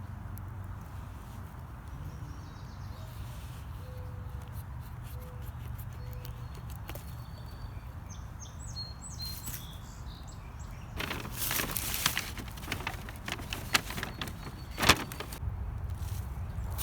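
Footsteps and rustling through forest undergrowth, a run of crackles and snaps starting about eleven seconds in, the loudest snap near the end. Faint bird chirps come earlier over a steady low rumble.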